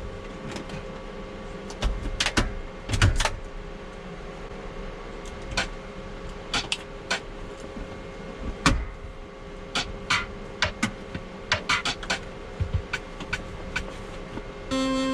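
Scattered clicks and knocks of things being handled inside a van, over a steady faint electrical hum. Near the end comes a short buzzing beep, then a thump.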